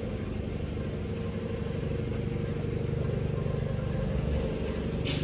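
Engine of approaching landscaping equipment, running steadily and growing gradually louder. There is a short sharp hiss just before the end.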